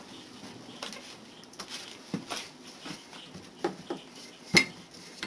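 Hands patting and pressing floured pie dough on a plastic cutting board, with a few light knocks and one sharper knock about four and a half seconds in.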